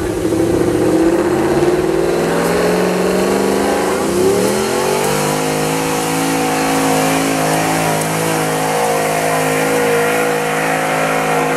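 2012 Dodge Ram 1500's 5.7-litre Hemi V8 running hard under heavy load while pulling a sled. The engine note climbs over the first four or five seconds, then holds steady at high revs.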